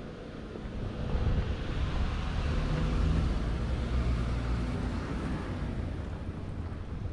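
Street traffic: a car passing on the road, its tyre and engine noise swelling over a couple of seconds and fading again, with wind buffeting the microphone.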